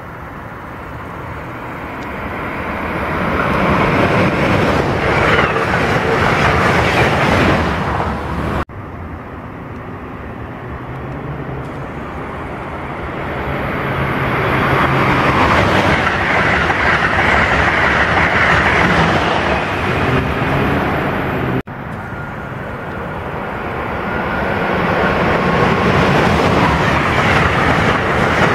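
Passenger trains approaching and running through a station: three separate passes, each building from a distant rumble to loud wheel-and-rail noise, with two abrupt cuts between them. In the last pass, a train of stainless-steel coaches rolls by close at speed.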